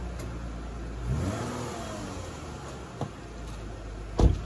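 Lexus IS250's 2.5-litre V6 idling through its stock muffler, given one short throttle blip about a second in that rises and then falls in pitch. A sharp thump near the end is the loudest sound.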